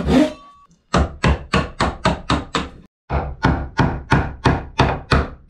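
A hammer driving a wood chisel to chop a notch in a wooden block: two steady runs of sharp blows, about four a second. A last pull-saw stroke ends just at the start.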